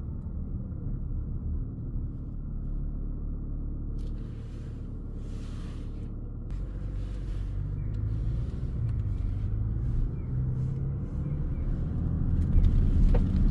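Mazda CX-60 on the move, heard inside the cabin: a steady low engine and road rumble that grows louder in the second half as the engine tones strengthen, as when the car picks up speed.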